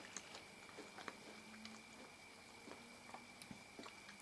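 Near silence with faint, scattered small clicks of quiet chewing on a chocolate-covered biscuit.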